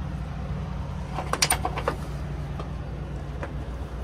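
A cargo strap's metal end fitting clinking as it is worked free of the E-track rail in a trailer wall: a quick cluster of sharp metallic clicks about a second and a half in, and a couple of lone clicks later. A steady low engine rumble runs underneath.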